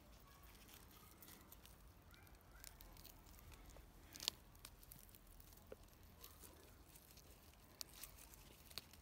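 Faint rustling of currant leaves and small snapping clicks as bunches of red currants are pulled from the bush by hand, with one sharper click a little over four seconds in.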